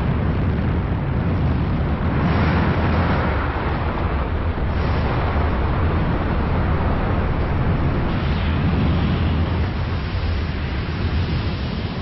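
Soufrière Hills volcano erupting as its lava dome collapses: a steady deep rumble with a hiss over it, swelling about two seconds in and again around eight seconds.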